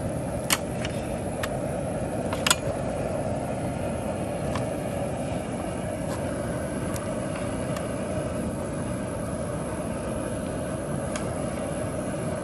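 Propane burner running steadily under a large aluminium pot, with a few sharp clinks of a metal ladle against the pot, the loudest about two and a half seconds in.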